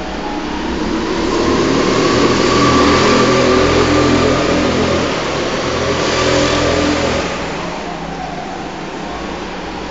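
Go-kart engines passing close by the trackside. The engine note swells over the first few seconds, stays loud, and fades about seven seconds in as the karts move away.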